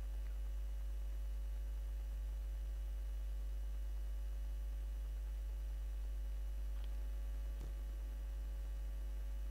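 Steady electrical mains hum with evenly spaced overtones, with a faint click late on.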